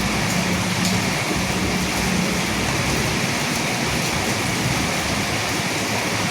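Steady rain falling, a dense even hiss of drops. A low rumble underneath fades away in the first couple of seconds.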